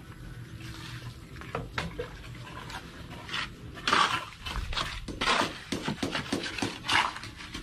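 A steel trowel scraping and tapping on mortar and concrete hollow blocks in irregular strokes, louder from about three seconds in.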